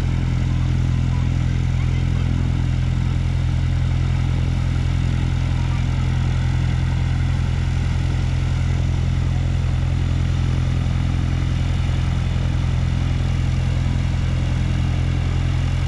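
Cessna 182's piston engine running steadily at low taxi power, a constant low drone with no change in pitch.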